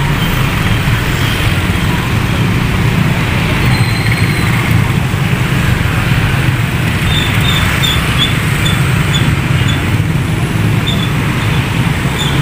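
Steady mixed traffic of motorcycles and cars crossing a railway level crossing: small engines running and tyres on wet asphalt, a continuous rumble with no breaks.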